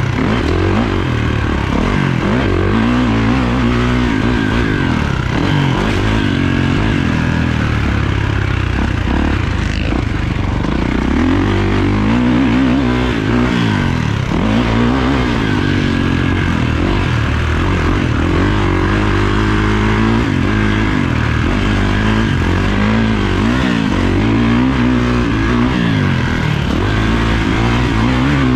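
A Kawasaki motocross dirt bike's engine, heard from on board, revving hard. Its pitch climbs and drops again and again as the bike accelerates and backs off around the track.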